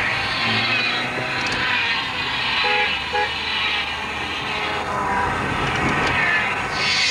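Car driving along a street, heard from inside the cabin through an old camcorder microphone, with two short horn toots about three seconds in.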